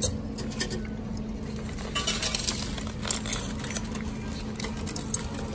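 Coins clinking as loose change is handled and fed into the coin slot of a metro ticket vending machine: a cluster of quick, bright clinks starting about two seconds in, with more near the end.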